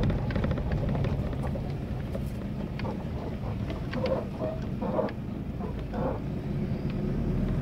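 Vehicle engine running steadily at low speed on a rough dirt track, heard from inside the cab, with scattered knocks and rattles as it goes over the bumps.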